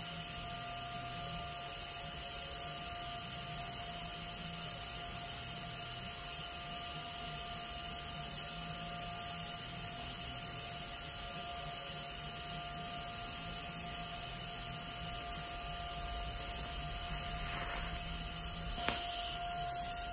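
TIG welding arc running steadily as filler rod is fed into the seam of a patch on a rusted fuel tank: a constant hiss and buzz with a faint whine. A short sharp click comes about a second before the end.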